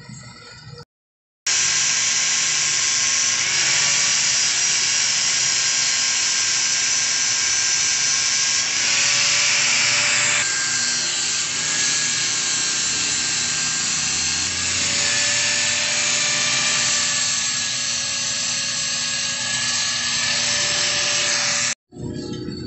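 Stick (arc) welding on a steel motorcycle exhaust pipe joint: a loud, steady hiss of the burning arc. It begins about a second and a half in and cuts off suddenly near the end.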